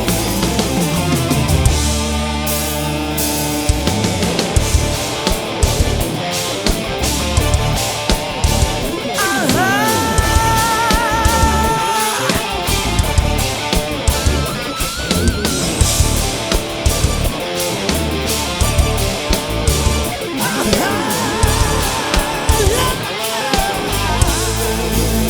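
Live rock band playing an instrumental passage: electric guitars and a drum kit, with a held, wavering lead note about ten seconds in and another near the end.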